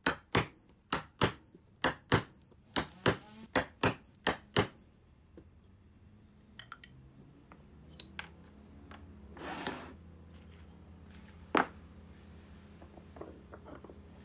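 Hammer striking a steel hand tool set against a wooden jig block: about a dozen sharp metallic taps in the first five seconds, each with a brief ring, then quieter handling and one more tap later.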